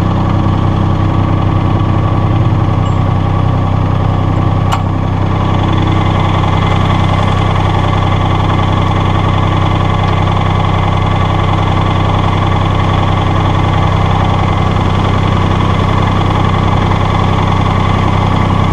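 Massey Ferguson GC1720 sub-compact tractor's three-cylinder diesel engine idling steadily, just after a start, with a single light click about five seconds in.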